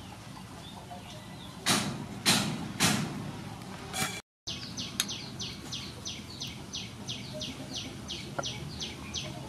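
A cleaver chops down onto a wooden cutting board three times, loud and sharp, with a lighter fourth chop about a second later. After a short break a bird calls a long run of quick, falling chirps, about four a second.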